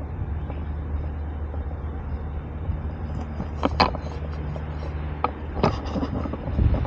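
A motor vehicle engine running steadily with a low hum, and two sharp clicks, about four seconds in and again a moment later.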